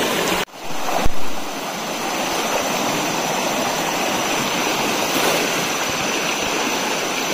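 Shallow river running fast over rocks, a steady rushing of water. It breaks off for a moment about half a second in, with a brief knock just after.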